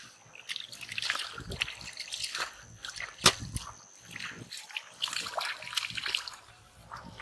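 Shallow muddy pond water splashing, sloshing and dripping in irregular bursts as hands scoop through mud and water plants, with one sharp slap about three seconds in.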